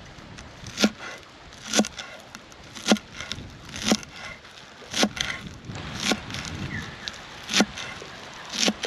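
Steady chopping on wood, a sharp knock about once a second, eight strokes in all.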